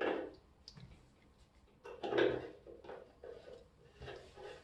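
Light metal clicks and scrapes as a shower tap spindle with a new washer is fitted back into the tap body and turned by hand. There is a short burst of handling noise at the start and another about two seconds in.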